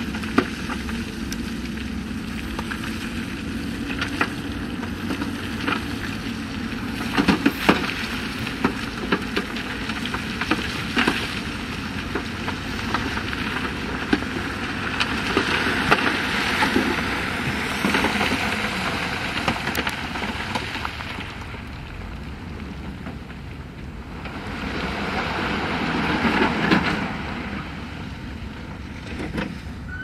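Heavy earthmoving machinery working: a diesel engine runs steadily, with scattered clanks and knocks, and grows louder for a few seconds around the middle and again near the end.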